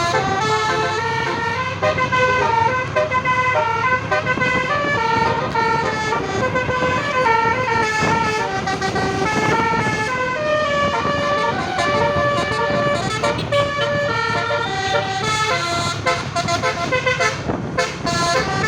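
A bus's 'basuri' telolet horn, a 12-note musical air horn with roof-mounted trumpets, playing a melody of held notes that step up and down in pitch, over a low rumble of engine and traffic.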